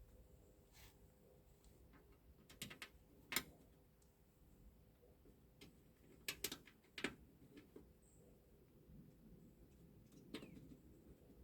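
Near silence broken by a few faint, sharp clicks and taps in small clusters, from hand tools, screws and trim pieces being handled during tailgate reassembly.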